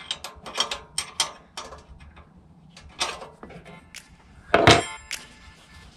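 Metal clicks and knocks of a wrench loosening the oil drain screw on a Honda GX390 engine's crankcase, with one louder, briefly ringing metal clank about four and a half seconds in.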